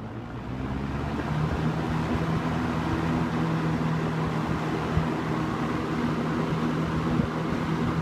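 1978 Kmart (Lakewood) K-223 box fan running on high, coming up to speed over the first second or so and then holding steady: an even rush of air over a low motor hum.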